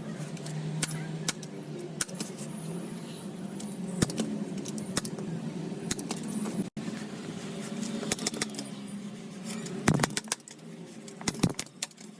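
Irregular sharp clicks and knocks, about a dozen spread unevenly, over a steady low hum; the loudest cluster of clicks comes near the end.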